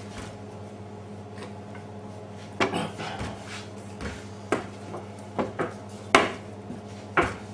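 Wooden rolling pin working dough on a floured table, with several sharp knocks and clacks as the pin is lifted, shifted and set down on the surface. They start a little after two seconds in and come irregularly over a steady low hum.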